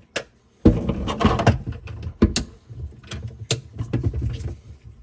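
Irregular knocks, clicks and scraping of hands and metal working at a stuck faucet supply-line coupling under a kitchen sink, with a longer scraping rattle about a second in, over a steady low hum.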